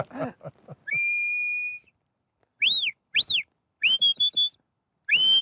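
Shepherd's sheepdog whistle blown in a series of herding commands to a working dog. First a steady note of about a second, then two quick rising-and-falling notes, then a short warbling note, then a longer warbling note that climbs slowly near the end.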